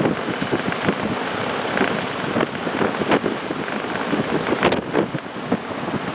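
Strong wind buffeting the microphone, a steady rushing noise broken by many irregular gusty thumps.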